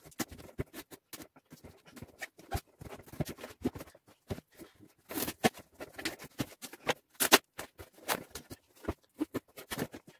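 Cardboard boxes being handled and stacked: irregular rustles, scrapes and knocks of cardboard, loudest about five and seven seconds in.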